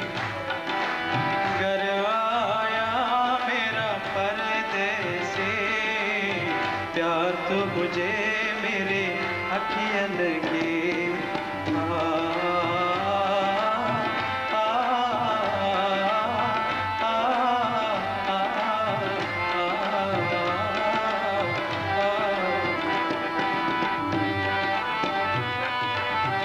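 Live Indian song on harmonium and tabla: a steady tabla rhythm under a melodic harmonium line, with a male voice singing along.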